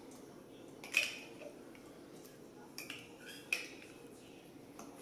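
A metal utensil scraping apricot preserves out of a glass jar into a stainless steel mixing bowl, with sharp light clinks against the jar and the bowl: one about a second in and a few smaller ones around three seconds in.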